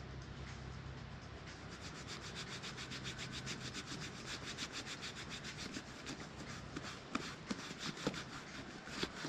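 A hand rubbing shoe leather cream into a leather jacket sleeve: quick, even back-and-forth strokes, about six a second, with a few louder knocks near the end.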